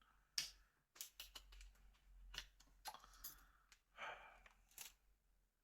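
Faint clicks and short scrapes of a tool working inside an opened iPhone 8 while the old battery is pried out.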